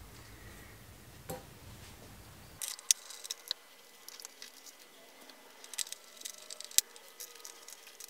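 Faint clicks and rustling of a wire with a ring terminal being fitted onto a busbar stud, in two short clusters, with one sharp click near the end.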